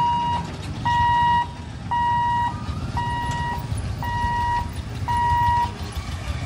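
Level-crossing warning buzzer beeping about once a second, each beep a steady high tone about half a second long, as the lifting barrier goes up; it stops near the end. Underneath, motorcycle and scooter engines run as the waiting two-wheelers move off.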